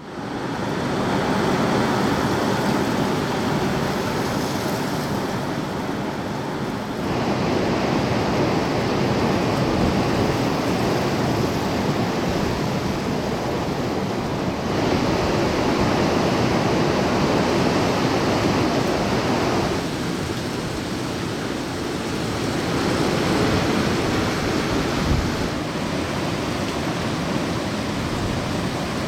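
Storm-force wind blowing hard over the microphone: a dense, steady rushing noise that changes abruptly several times.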